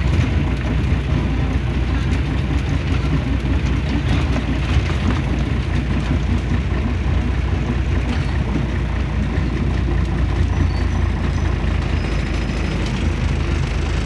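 Scania CN113CLB city bus heard from inside the passenger cabin: its diesel engine runs with a steady low drone, mixed with road noise and scattered light rattles.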